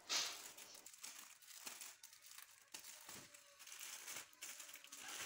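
Clear plastic sleeves around packs of patterned craft paper crinkling and rustling as hands shift and lift them, with one louder rustle just after the start, then soft intermittent crinkles and light taps.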